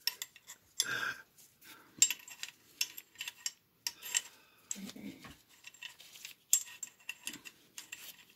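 Steel parts of an M1 carbine clicking, clinking and scraping in irregular handling noises as the bolt is worked back into the receiver. It is a fiddly fit that is not going in.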